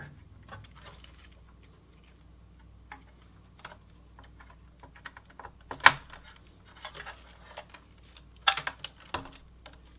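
Scattered light clicks and taps of cable connectors and plastic and metal parts being handled inside a Dell OptiPlex 780 desktop case, with a sharper knock about six seconds in and a quick run of clicks near the end.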